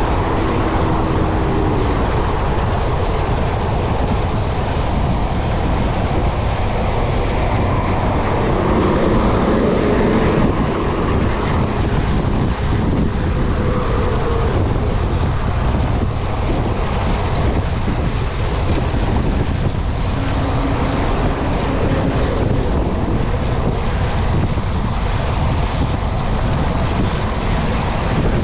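Wind rushing over the camera microphone of a bicycle moving at about 42 km/h, a loud steady rumble. The hum of motor traffic on the highway comes through at times.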